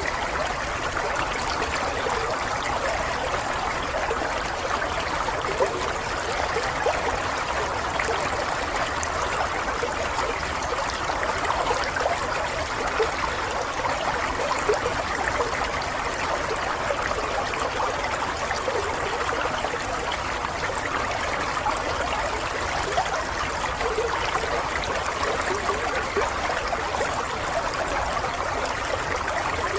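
Water running and trickling steadily, like a small stream, with a busy, even bubbling and no break.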